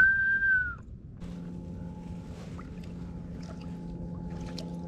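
A short, high, steady whistle lasting under a second, then a steady low engine drone with a few faint clicks over it.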